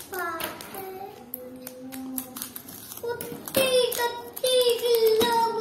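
A young child's high voice in long held notes, getting louder about halfway through, over light clicks and rustles of a small package being opened by hand.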